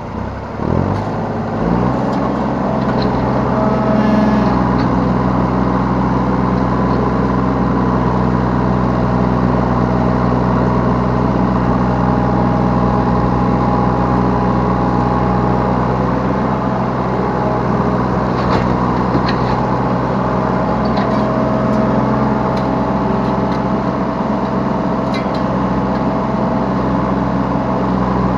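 Yanmar B3 Sigma 3-tonne mini excavator's diesel engine rising from idle to working speed a second or two in, then running steadily under hydraulic load. A few short knocks sound over it.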